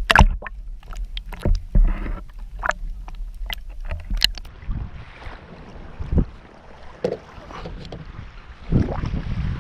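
Sharp clicks and knocks from handling on a fishing kayak, many in the first few seconds and a few more later, over a steady rumble of wind on the microphone and water against the hull.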